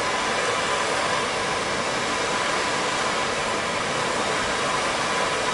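Hand-held gas soldering torch flame hissing steadily while heating copper pipe and a brass ball valve for soldering.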